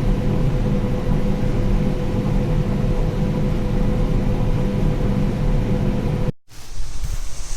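Combine harvester running steadily while harvesting corn, a loud drone with a steady whine over a low rumble. About six seconds in it cuts off abruptly and a quieter hiss follows.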